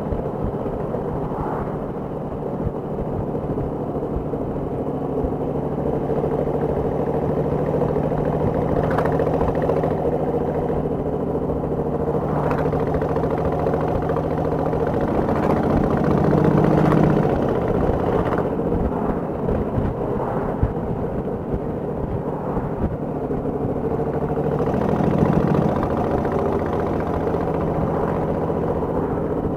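Motorcycle engine running steadily at road speed, with wind rumbling on the microphone. The sound swells briefly twice, around the middle and near the end.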